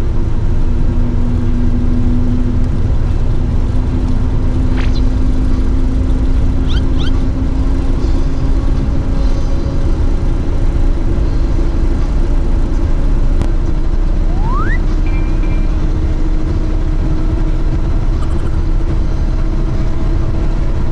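Steady engine drone and road rumble heard from inside a moving minibus, the engine note climbing slowly.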